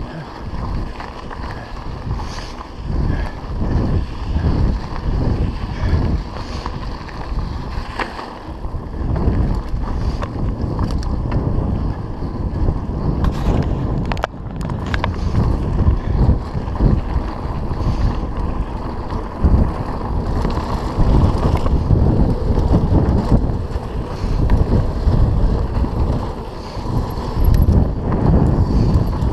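Wind buffeting the microphone of a camera riding on a mountain bike, a steady rumbling rush, with irregular knocks and rattles as the bike runs over a dirt road and rough singletrack.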